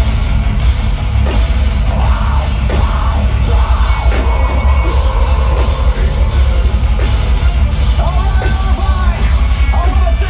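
Metalcore band playing live, heard from within the crowd: drums, guitars and heavy bass, loud and bass-heavy, with the singer's voice coming in at times over the band.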